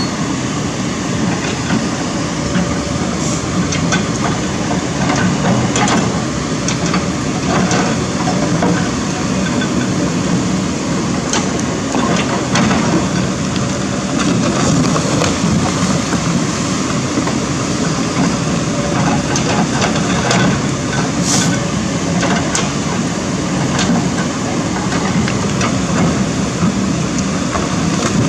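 Kobelco SK200 hydraulic excavator's diesel engine running steadily under load, with scattered knocks and clatter of stones as the bucket pushes rocks and dirt down the bank. Rushing river water adds to the steady noise.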